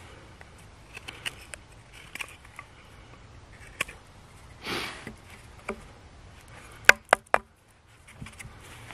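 A fixed-blade knife whittling a wooden peg: light scrapes and shaving strokes, with one longer swish about halfway. Three sharp wooden knocks in quick succession come near the end, as the peg is worked into the hole in the log.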